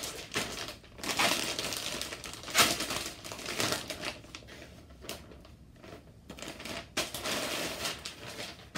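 Clear plastic packaging bag crinkling and rustling in irregular bursts as it is handled and a fabric diaper bag is pulled out of it.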